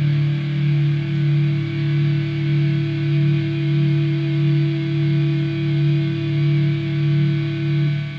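Alto saxophone playing with a rock backing track of distorted electric guitar, on a long sustained final chord. The low part pulses steadily, about three times every two seconds.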